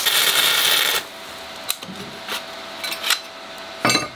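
Stick-welding arc crackling on steel plate, cutting off abruptly about a second in. A few light clicks follow, with a short louder knock near the end.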